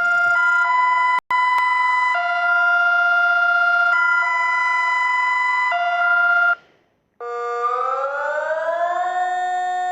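Emergency alert alarm tones: a loud, steady electronic chord of several tones that shifts pitch a few times and cuts off after about six and a half seconds. After a short gap a siren tone starts, rises slowly in pitch, holds, and begins to fall near the end.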